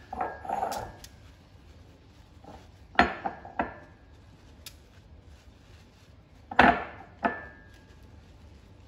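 Sharp clinks against a ceramic mug of melted butter as a basting brush is dipped into it, in two pairs about three and about seven seconds in; the loudest ones ring briefly. A short soft rustle of handling comes at the start.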